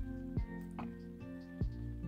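Background music: sustained chords with a soft beat.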